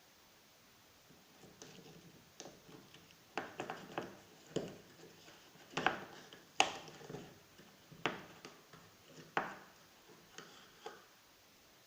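A string of irregular small knocks and clicks with some rubbing between them, about a dozen over several seconds; the loudest come in the middle.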